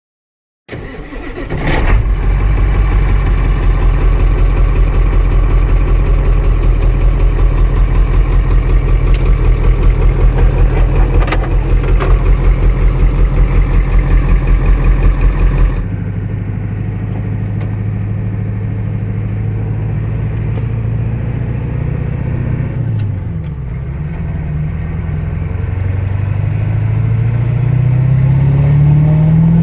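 Ford OBS pickup truck engine running, a low rumble with a fast, even pulse that comes in suddenly about a second in. About halfway through it changes abruptly to the truck under way, the engine note rising steadily near the end as it accelerates.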